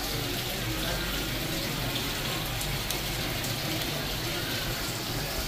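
Steady rush of running water with a low hum underneath.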